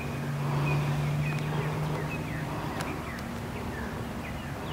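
A bass boat's electric trolling motor humming steadily, easing off a little past two seconds in, while birds give short downward-sliding chirps several times.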